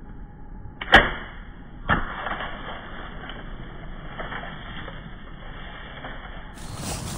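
A bow shot: a sharp, loud snap of the bowstring about a second in, then a second thud about a second later, followed by scattered rustling and crackling as the deer bolt.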